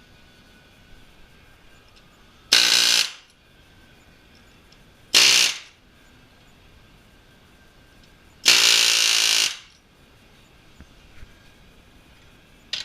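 A hand-held power tool, such as an impact wrench or drill, run in three short bursts. The first two last about half a second each and the third, near the middle, runs for about a second.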